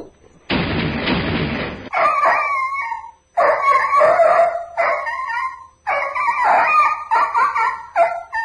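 A harsh burst of noise lasting over a second, then dogs yelping and crying in a string of short, high cries, heard over a phone line.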